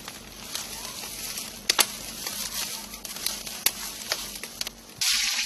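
Fire burning in the firebox of a traditional brick kitchen stove as it is fed: a steady crackle with a few sharp pops. Near the end a louder hiss sets in.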